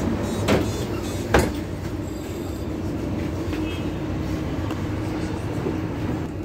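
Inside a moving Mercedes-Benz Citaro city bus: steady engine and road hum with a faint held tone. Two sharp knocks come about half a second and a second and a half in, the second the louder.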